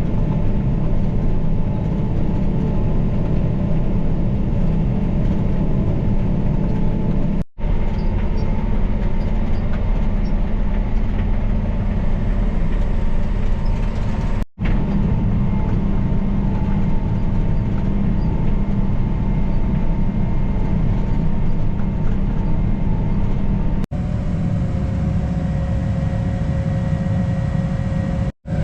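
Farm tractor engine running steadily under load while pulling a disc, heard from inside the cab. The sound breaks off for a split second a few times, and the tone changes slightly for the last few seconds.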